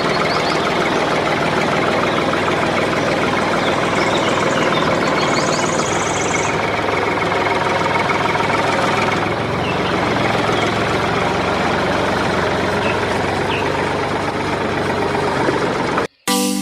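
A machine running steadily, then cutting off abruptly near the end.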